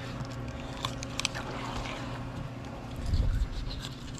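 Fillet knife slicing through mahi-mahi skin and flesh, with a few light clicks about a second in and a louder low thump a little after three seconds, over a steady low hum.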